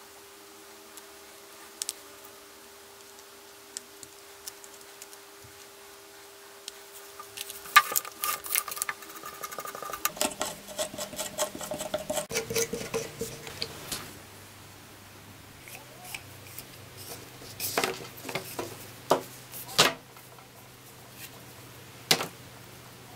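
Hands handling the opened plastic housing and metal armature and chuck assembly of a Peugeot 400W electric drill: scattered clicks and knocks, with a busy stretch of clattering about a third of the way in and a few sharp clicks near the end.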